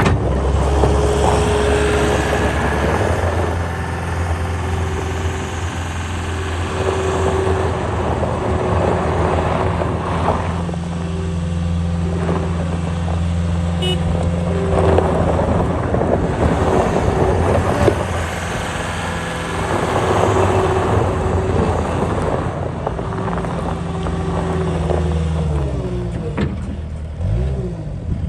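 Cat 262D skid steer's diesel engine running under load, its pitch stepping up and down as the machine is worked, with stretches of rougher, noisier sound. Near the end the engine speed drops.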